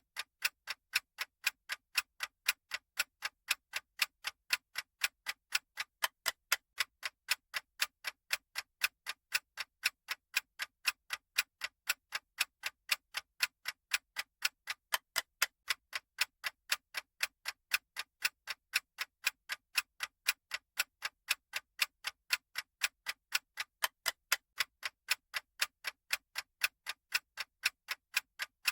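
Clock-style ticking sound effect of a countdown timer: crisp, evenly spaced ticks at a steady pace and level.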